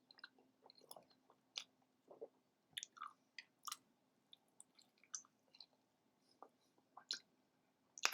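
A person chewing a mouthful of bacon cheeseburger close to the microphone: quiet, irregular wet mouth clicks and smacks, with a sharper smack near the end.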